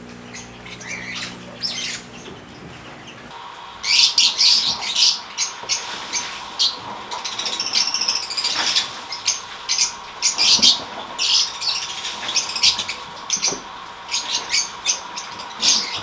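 A flock of African lovebirds chattering, with many shrill chirps and squawks coming thick and fast from about four seconds in. Before that, background music plays briefly.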